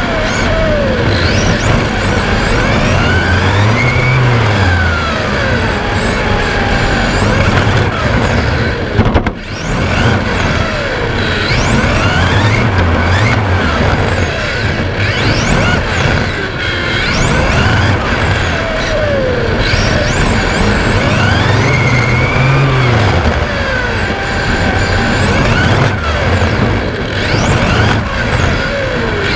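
Onboard sound of an Xray T4 1/10 electric touring car with an LRP X20 4.5-turn brushless motor lapping a track. The motor and drivetrain whine sweeps up steeply under throttle and falls away off throttle, again and again, over a steady rushing noise. A single sharp knock comes about nine seconds in.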